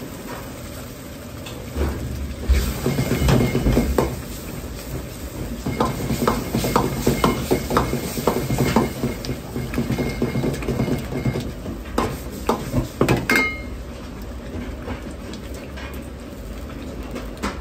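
A metal ladle stirring and knocking against a steel wok of simmering meat sauce: quick clicks and scrapes from about two seconds in until about thirteen seconds. A steady low rumble from the gas wok burner runs underneath.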